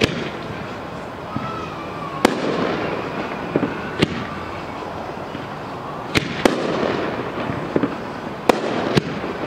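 Aerial fireworks going off in a display: a series of sharp bangs every second or two, some in quick pairs, each followed by a rolling echo.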